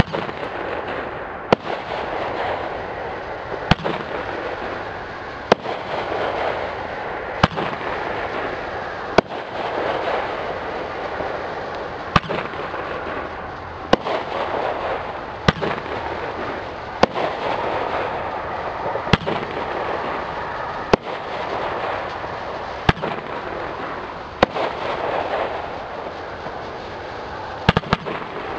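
Dominator Mammoth Strobe Red 10-shot fireworks cake firing: sharp bangs about every two seconds, with a steady hiss of flickering red strobe stars between them. A quick cluster of bangs comes near the end.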